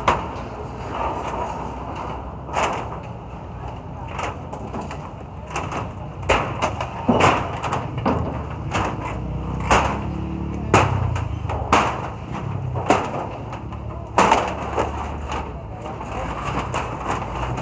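Sharp bangs and rattling clatter of rusty corrugated iron sheets and wooden boards being pried loose and thrown down during a shanty demolition, coming irregularly about once a second, over a steady low rumble.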